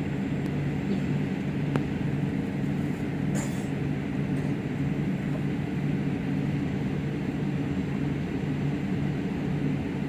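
Steady jet-airliner cabin noise while taxiing: the engines run at low taxi power under the hiss of the cabin air, making an even low hum.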